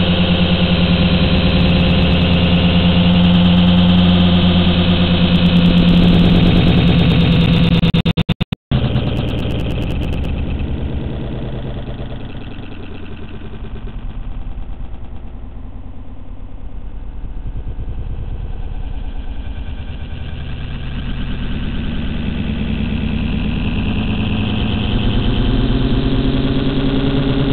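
Steady hum of the JJRC H8D quadcopter's motors picked up by its onboard camera. About eight seconds in the sound cuts out for a moment, then gives way to a rougher, quieter rushing noise that fades and swells again toward the end.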